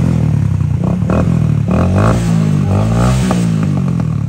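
70cc single-cylinder four-stroke motorcycle engine with an aftermarket muffler, running at idle; about two seconds in the revs dip and come back up.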